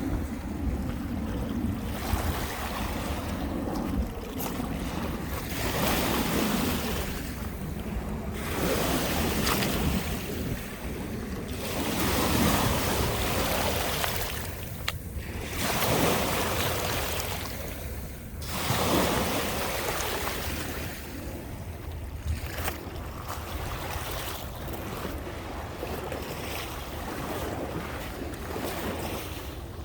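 Lake Michigan waves breaking and washing up the beach, surging every two to three seconds, with wind rumbling on the microphone.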